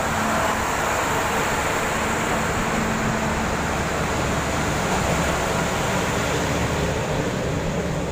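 Kanto Railway KiHa 310 series diesel railcar pulling out of the station, its diesel engine running under power with steady wheel-on-rail noise as it passes and moves away.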